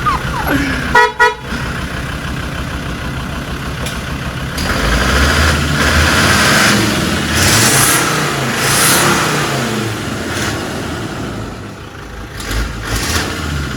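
Land Rover Discovery TD5's five-cylinder turbo-diesel engine running as the vehicle pulls in, with a short horn toot about a second in. The engine gets louder for a few seconds in the middle, then drops back.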